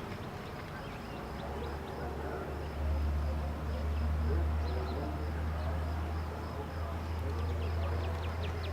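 Outdoor ambience after a siren test, with the siren silent: short bird chirps come and go over a steady low rumble, and the chirps grow busier near the end. A faint steady high tone runs underneath.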